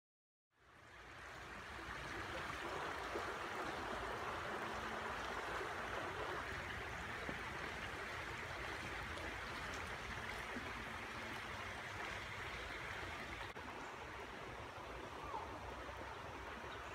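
Shallow rocky creek flowing, a steady rush of water that fades in about half a second in.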